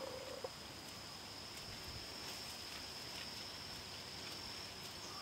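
Quiet outdoor ambience dominated by a steady high-pitched insect drone. A cat's low rough vocal sound, heard just before, cuts off about half a second in.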